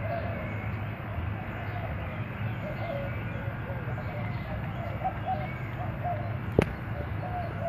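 Doves cooing: low, wavering coos repeated in short phrases over and over. A single sharp click sounds a little before the end.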